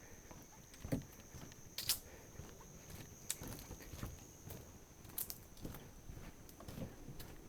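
Footsteps of a person walking along a trail: irregular crunches and taps, a few louder than the rest, over a faint steady high-pitched tone.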